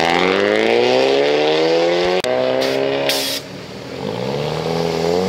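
Car engine accelerating hard, its pitch climbing steadily, with a sudden break about two seconds in as it shifts gear and then climbs again. A little past three seconds the throttle closes, with a short sharp hiss, and the engine note rises again near the end.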